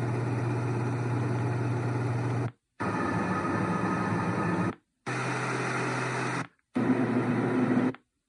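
Reacher R2 white noise machine cycling through its fan sounds: four different steady fan-noise recordings played through its speaker, each cut off by a brief silence as the button is pressed and replaced by the next, each with a different low hum.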